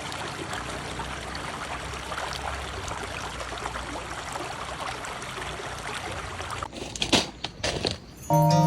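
Wood fire crackling steadily in a small camping fire pit, with a few louder snaps near the end.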